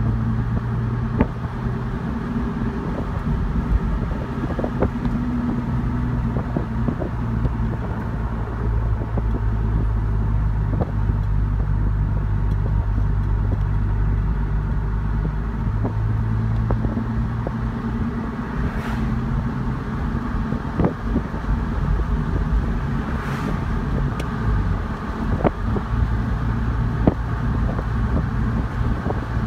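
Car driving along a road: a steady low engine hum and road noise, with scattered small knocks and two brief rushing swells about two-thirds of the way through.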